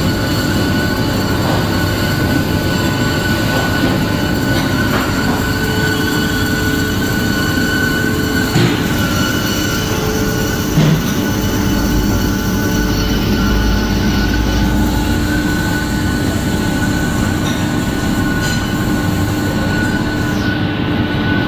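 2006 Hyd-Mech H-14A horizontal bandsaw, 8.8 HP, cutting through a bundle of rectangular metal tubing: a steady, loud metal-cutting noise with a steady high whine. A couple of brief knocks come about midway.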